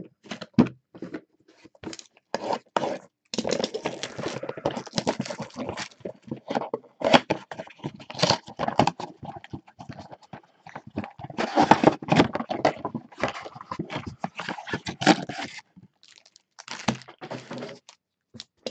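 Cardboard mega box and foil trading-card packs handled and stacked: irregular knocks and clicks, with two longer spells of dense rustling, about three seconds in and again just past halfway.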